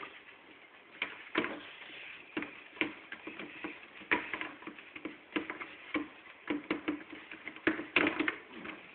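Irregular light taps and clicks of hands pressing and patting dough out across a metal baking tray.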